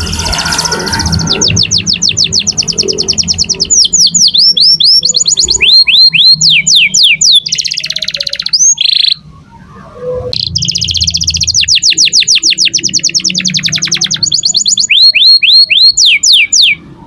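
Domestic canary singing loudly: two long song phrases of fast trilled notes and repeated down-sweeping whistles, separated by a pause of about a second near the middle.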